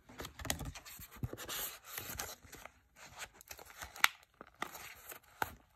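A laminated card and clear plastic binder pouch being handled: plastic rustling and crinkling with scattered taps and clicks, the sharpest click about four seconds in.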